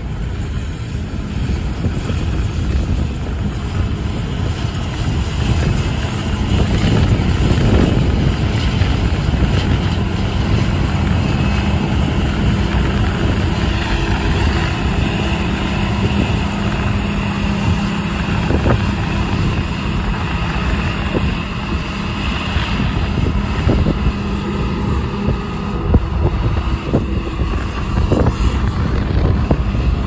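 Combine harvester running steadily as it cuts wheat, a steady engine hum with a high whine from the machine. Heavy wind buffets the microphone throughout.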